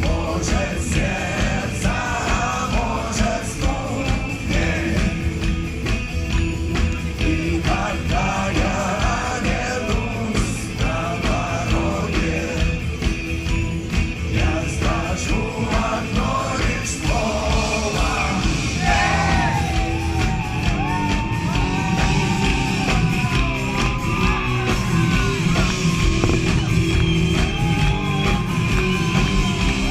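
Rock band playing live, with a singer over a steady driving beat.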